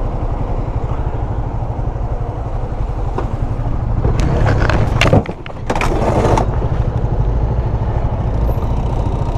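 Honda motorcycle engine running at low speed in traffic, a steady low pulsing throughout. About four to six seconds in, a cluster of loud harsh noises cuts over it.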